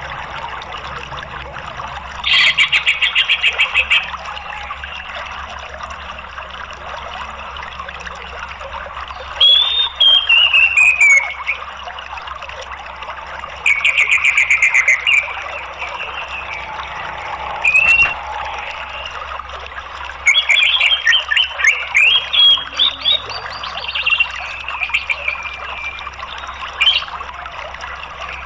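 Orange-headed thrush song phrases over a steady sound of running water: a rapid trill about two seconds in, a falling whistled phrase around ten seconds, another rapid trill around fourteen seconds, then a run of varied sharp notes from about twenty to twenty-four seconds.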